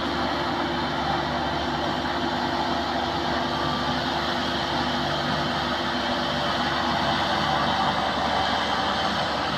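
Tracked rice combine harvester's engine running at a steady speed as the machine crawls along a dirt track, a constant drone of several low tones over a broad mechanical noise.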